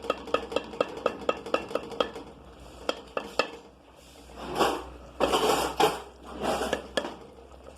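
A utensil clinking against a cooking pot in a quick, even rhythm of about four clinks a second, slowing to a couple of single clinks, then three short scraping bursts in the pot as the tongue slices are worked into the tomato sauce.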